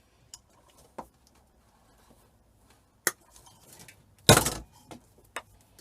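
Metal hand tools and cable being handled on a work surface: a few light clinks and clicks, with one louder clatter about four seconds in.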